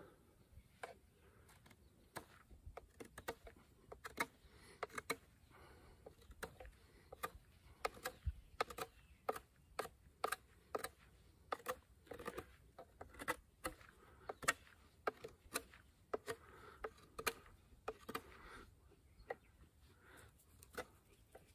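A knife making short cutting strokes into a small piece held in the hand, heard as a run of sharp, irregular clicks and scrapes, about two or three a second.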